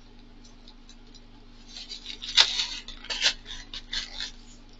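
Scissors cutting and scraping through the packing tape on a styrofoam box: a run of short, sharp, scratchy rasps that starts about halfway in, some strokes louder than others.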